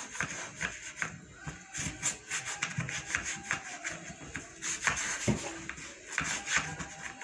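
Scrubbing and rubbing against the wooden panel of a bed headboard, in quick, irregular scraping strokes.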